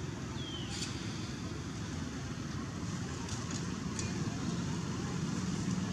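Outdoor background: a steady low rumble, with a short high falling chirp a little under a second in and a few faint clicks.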